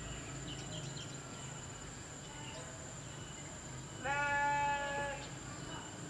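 One long bleat-like animal call about four seconds in, lasting about a second at a steady pitch. Faint short high chirps and a steady high whine run under it.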